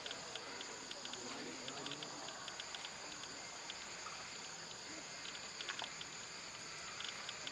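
Steady high-pitched drone of forest insects, with scattered faint clicks over it.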